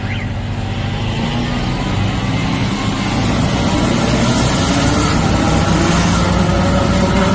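Twin-engine high-pressure drain-cleaning jetter running under load. It grows louder over the first few seconds, with a low, even pulsing underneath.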